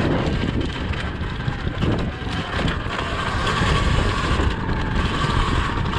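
Surron Ultra Bee electric dirt bike riding a rough dirt trail: wind buffeting the microphone over the rumble of knobby tyres, chain and suspension, with no engine note. A faint steady whine from the electric drivetrain comes through more clearly from about halfway through.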